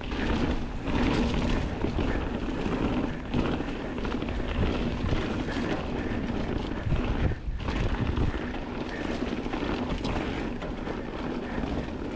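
Mountain bike riding fast down a dirt trail, heard from a GoPro on the rider: steady tyre and wind rumble with rattling knocks from the bike. It drops off briefly about seven and a half seconds in.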